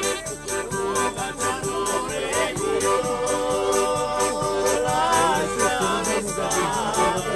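Southern Italian folk music: an accordion and a jingling frame drum keep a steady beat while a small pipe plays at first, and a voice sings over them in the second half.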